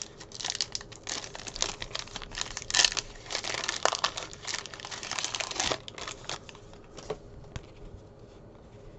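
Foil wrapper of a Sage Hit football trading-card pack being torn open and crinkled: a dense run of crackling for about six seconds, then quieter handling with a few light clicks.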